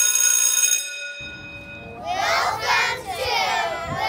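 A steady electronic ringing tone with many overtones cuts off under a second in. From about two seconds in, a group of young children shout or chant together.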